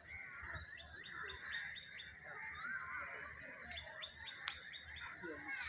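Several small birds chirping and calling over one another, with two runs of short, quick high chips, about one and a half and four seconds in. A single sharp click comes about four and a half seconds in.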